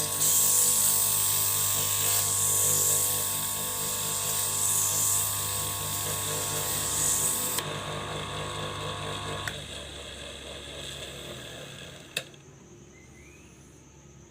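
Wood lathe running with sandpaper hissing against the spinning workpiece. The sanding hiss stops about halfway through, the motor hum cuts out a couple of seconds later and the lathe winds down. A sharp click near the end, then faint crickets chirping.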